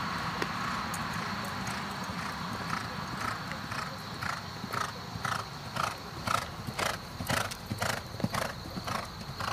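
Racehorse galloping on a dirt track: hoofbeats in a steady rhythm of about two strides a second, growing louder from about five seconds in as the horse comes close.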